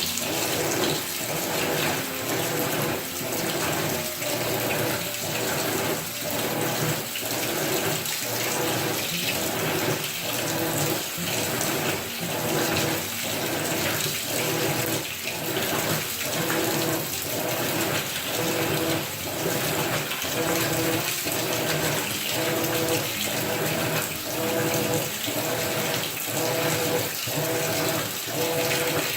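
Top-load washing machine with an agitator running, water sloshing in the tub in a regular surge a little faster than once a second over a steady motor hum.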